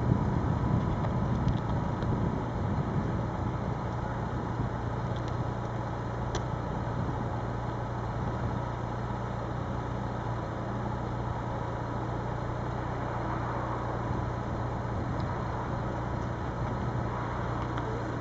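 Distant electric passenger train approaching slowly, heard as a steady low hum and rumble over outdoor background noise, a little louder at first.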